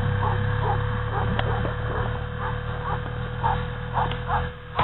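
A dog whining in short, repeated whimpers, about two a second, over a steady low hum.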